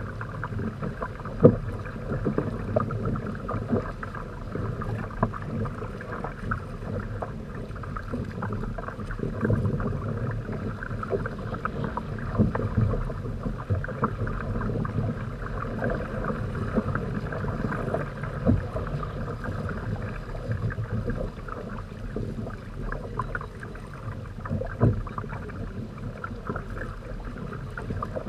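Lake water rushing and slapping against the rotomolded plastic hulls of a Hobie Tandem Island trimaran under sail. It makes a steady wash, broken by frequent short, sharp slaps.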